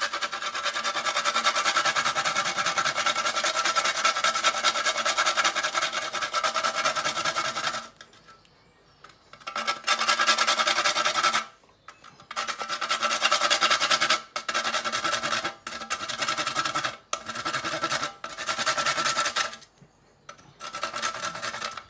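Nutmeg being grated on a stainless-steel box grater: rapid rasping strokes run continuously for about eight seconds, then after a short pause come in a series of shorter bursts, each a second or two long.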